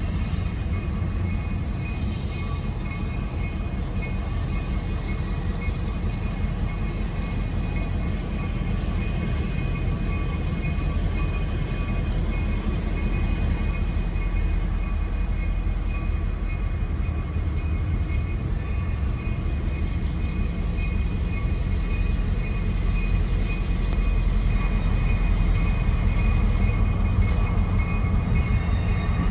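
Diesel freight locomotive's engine running under load as it pulls its train slowly up a grade, a steady low rumble that grows gradually louder as it approaches, with a thin steady whine over it.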